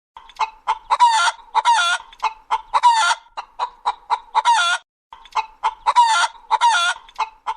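Chicken clucking: a run of short clucks mixed with longer drawn-out calls. The run breaks off briefly about five seconds in, then starts again in the same pattern.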